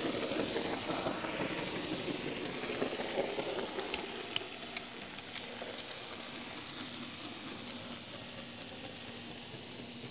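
HO scale model train rolling along the track right under the microphone: a steady rumble of wheels and motor on the rails, with a few sharp clicks about four to five seconds in. It grows quieter over the second half.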